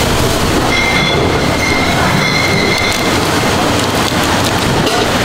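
Loud, steady background din of a busy market food stall, with a high squealing tone that comes and goes.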